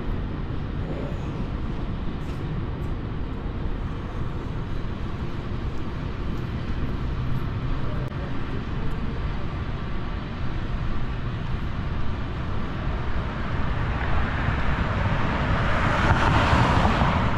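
City street traffic: a steady rumble of passing vehicles, with one vehicle passing close and swelling in loudness near the end.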